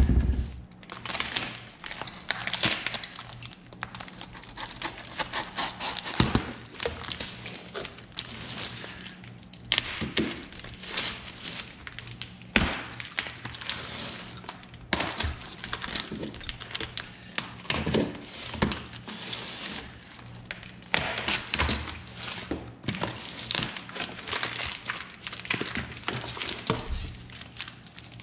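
Cardboard packaging being slit with a box cutter and pulled off a plastic-wrapped battery cell: irregular scraping, tearing and rustling of cardboard and plastic wrap, with occasional sharp knocks as the box is handled.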